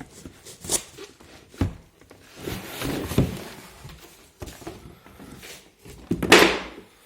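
Cardboard box and packaging handled as a heavy pressure washer unit is lifted out: scattered knocks and rustling, with a loud rustling scrape about six seconds in.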